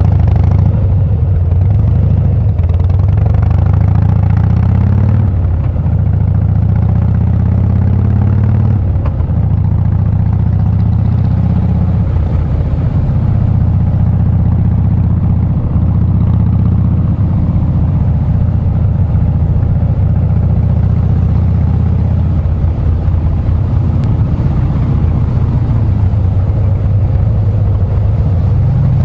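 Harley-Davidson Breakout's V-twin engine running loud and steady, its pitch rising and falling several times in the first half with throttle changes, then holding steadier.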